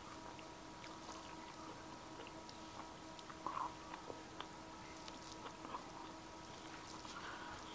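Quiet eating sounds: soft chewing and small wet clicks as fingers pick rice and fish from a plate, with a slightly louder bite about halfway through. A faint steady hum runs underneath.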